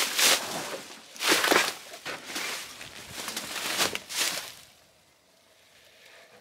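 Dry twigs and brush rustling and scraping as someone pushes through them on foot, in several irregular bursts that die away about five seconds in.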